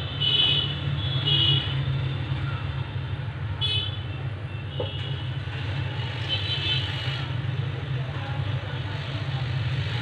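Steady low hum of an SMD hot-air rework station's blower as the phone's charging port is heated, with a few short high-pitched tones now and then.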